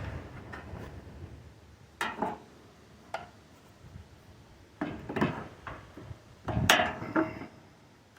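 Scattered clinks and knocks of hand tools and metal parts being handled, a few seconds apart, the loudest near the end with a short metallic ring.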